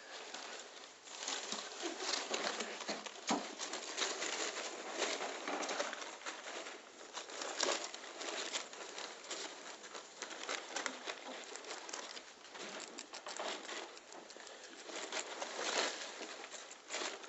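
Guinea pig crunching and chewing a slice of yellow bell pepper: a dense run of small wet crunches and clicks, mixed with rustling of paper.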